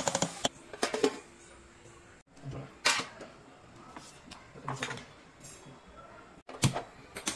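Steel spoon stirring thick semolina batter in a stainless steel bowl, with several sharp clinks and scrapes of the spoon against the bowl spread a second or two apart.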